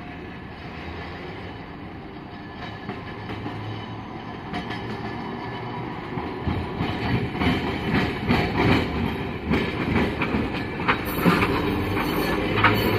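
Hiroshima Electric Railway streetcar No. 1914, an old former Kyoto city tram, rolling across a street-track junction. Its wheels clatter and knock over the rail joints and crossings, growing louder from about halfway in as the car passes close by.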